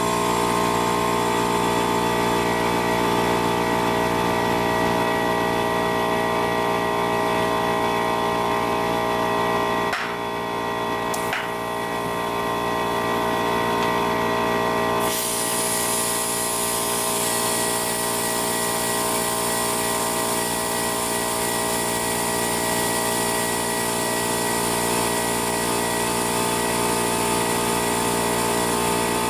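A motor running at a constant speed, a steady droning hum with a whine in it. It dips briefly about ten seconds in, and a high hiss joins about five seconds later and stays.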